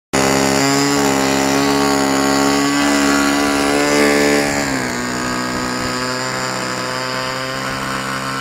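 Small model-airplane engine running steadily at high speed with a buzzing, even tone, settling to a slightly lower pitch about five seconds in.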